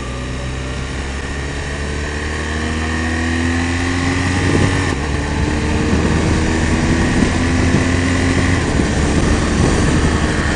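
Motorcycle engine accelerating, its pitch climbing steadily, dropping back at a gear change about halfway through and then climbing again.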